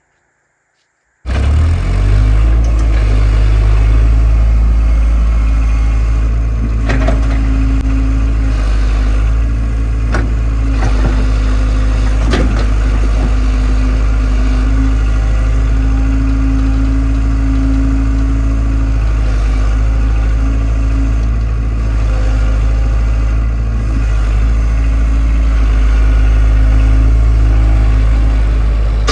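Excavator's diesel engine running steadily and loud, cutting in abruptly about a second in, with a few sharp metallic knocks from the machine's work.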